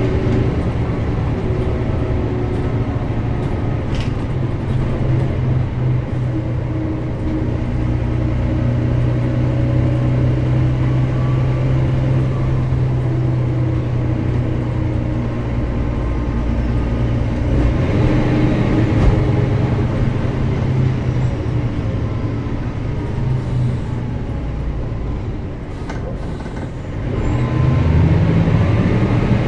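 Mercedes-Benz O405GN² articulated bus engine running under way with a steady note. It eases off near the end and then picks up again with a rising pitch.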